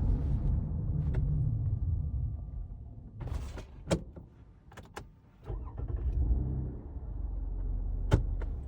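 Car's low road and running rumble fading as it slows with the engine switched off while moving, with a few short clicks and knocks in the middle. About five and a half seconds in, the low rumble picks up again.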